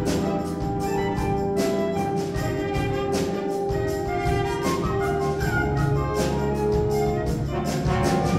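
Wind band playing live: brass and woodwinds hold sustained chords over drum strikes on a steady beat.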